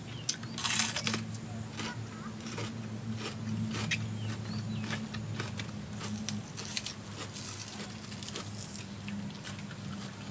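A person eating: crunchy bites and chewing with scattered small clicks, over a steady low hum.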